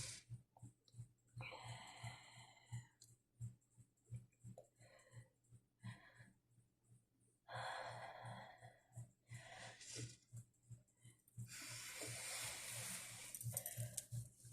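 A woman breathing faintly, three long breaths a few seconds apart, while she holds back a sneeze.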